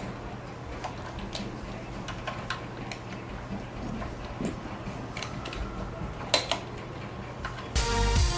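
Scattered light clicks and taps of parts and tools being handled during hands-on disassembly, with two sharper clicks about six and a half seconds in. Music with guitar and drums comes in near the end.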